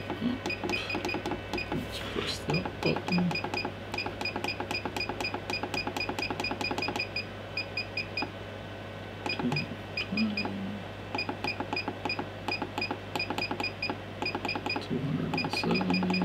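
Temperature-controlled desoldering station beeping in quick short beeps, about four a second, as its up button is held to raise the set temperature, with a few brief pauses. A steady low hum runs underneath.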